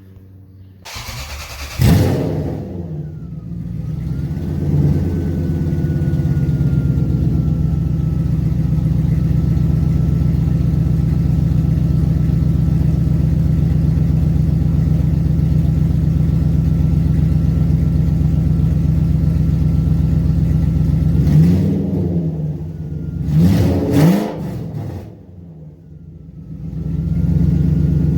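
A 1998 Lexus SC400's 4.0-litre V8 breathing through freshly fitted long-tube headers, a 2.5-inch X-pipe exhaust and aftermarket mufflers: it starts about a second in with a flare of revs, then settles into a steady idle. Near the end it is blipped twice, each rev rising and falling, drops away briefly, and idles again.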